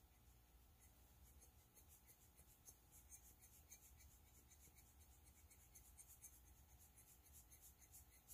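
Very faint, quick puffs of air from a hand-squeezed rubber air-blower bulb, several a second, blowing alcohol ink across paper.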